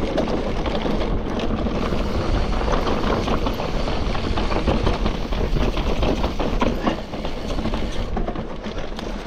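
Mountain bike descending a rough dirt-and-rock trail at speed: tyres running over the ground, with the frame and chain rattling and clattering.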